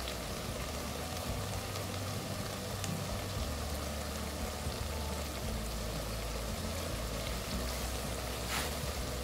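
Methi and chana dal frying in their separated oil in an open pressure cooker, a steady sizzle: the oil coming apart from the masala, the sign that the dish is ready.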